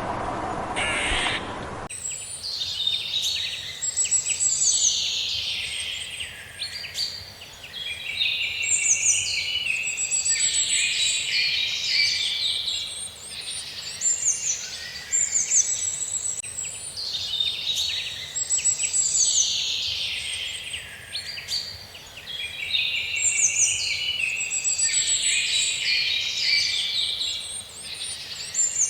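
A songbird sings a complex phrase of warbles and trills, repeated about every four to five seconds. About two seconds in, it takes over from a different, lower sound that cuts off suddenly.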